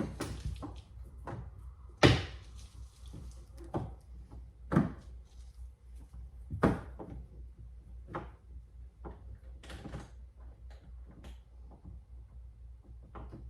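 Irregular clicks and knocks from parts and hand tools being handled against a car door while its outer door handle is refitted; the loudest knock comes about two seconds in.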